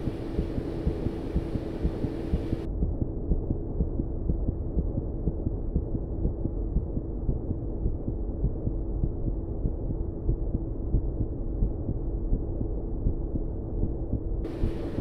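Low, muffled throbbing rumble with irregular soft thumps a few times a second over a steady hum. A brighter hiss on top drops away about three seconds in and comes back near the end.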